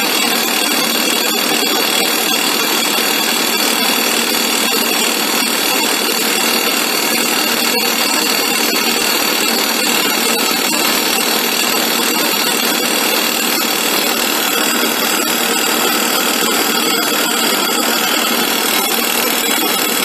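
Excavator-mounted hydraulic rock drill boring into rock: a loud, steady, unbroken drilling noise, with dust blowing out of the hole as it drills.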